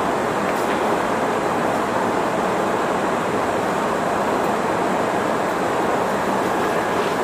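Steady, even background noise inside a Sotetsu 11000 series electric train car standing at a station, with no motor or inverter sound.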